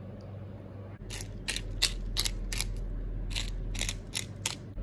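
Hand-twisted pepper mill grinding: a quick, uneven run of about a dozen short ratcheting grinds, starting about a second in.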